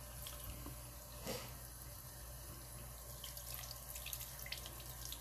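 Bathroom faucet running steadily into a sink, the water splashing as a makeup brush is rinsed against a palm under the stream.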